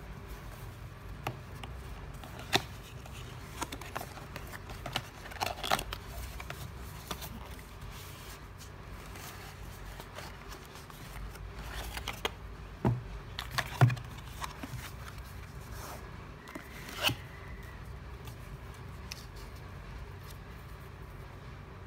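Cardboard perfume box and its paperboard insert being handled and opened: scattered small taps, scrapes and rustles, with a couple of low knocks against the wooden table about two-thirds of the way through.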